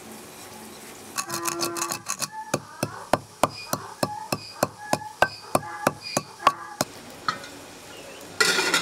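Metal kitchen utensils knocking against metal: a quick rattle of clinks, then a run of sharp ringing clinks about three a second. A short burst of hissing comes near the end.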